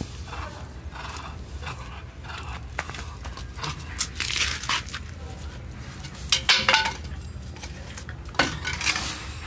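A wooden stick scraping and knocking against a concrete wall and floor as a small dog tugs on it with its teeth, in irregular bursts; the loudest come about six and a half seconds in and again near the end.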